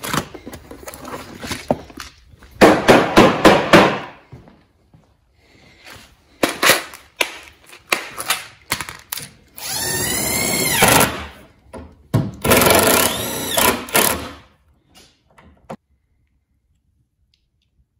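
A cordless power drill driving screws into the plywood console panel in two runs of about a second and a half each, its motor speeding up and then winding down each time. Earlier comes a burst of loud clattering from rummaging through small hardware.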